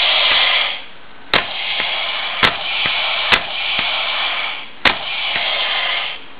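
Battery-powered toy pistol playing its electronic gunfire sound effect, a hissy crackling burst that pauses about a second in and then runs on. Four sharp clicks come through it as the trigger is pulled and the slide kicks back.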